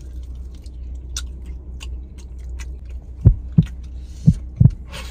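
Chewing and faint mouth clicks of people eating chicken wings over a steady low hum. From about three seconds in come strong deep thumps in pairs, about a third of a second apart, with a short hiss between them.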